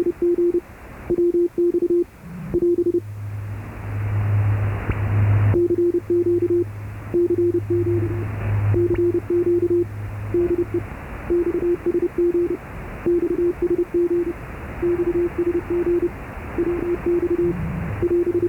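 Morse code (CW) received on a shortwave ship's radio: one steady tone keyed on and off in dots and dashes over band hiss, from a station on 8664 kHz that the uploader takes for Pyongyang Radio. A lower steady hum rises under it from about three seconds in and fades out past the ten-second mark.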